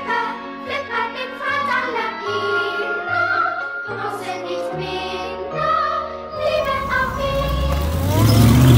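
Background music with singing over a bass line. Near the end, a Mercedes-Benz E55 AMG driving past close by rises into a loud swell of engine and tyre noise over the music.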